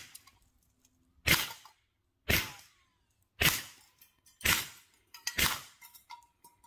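Hatsan Sortie .22 pre-charged semi-automatic air pistol fired in rapid succession: the tail of one shot, then five more sharp shots about a second apart, each dying away quickly, with a few small clicks after the last.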